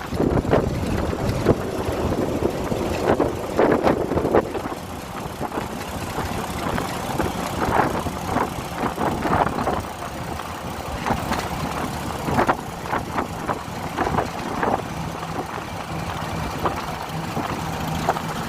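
Motor vehicle running on the road, with steady road and engine noise broken by many short, irregular knocks and rattles. A steady low engine hum comes in after about fifteen seconds.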